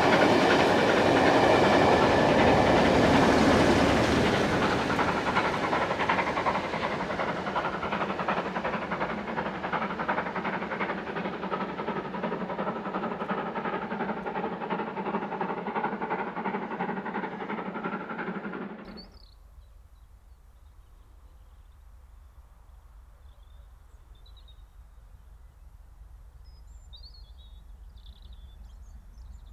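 Steam train running past with wheel clatter and hiss, loudest at the start and fading away over about fifteen seconds before cutting off abruptly. It is followed by a quiet background with a few faint bird chirps near the end.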